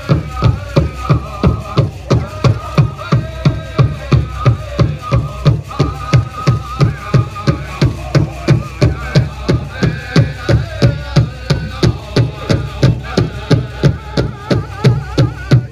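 Powwow drum and singers performing a jingle dress dance song: a steady, even drumbeat under high, wavering group singing.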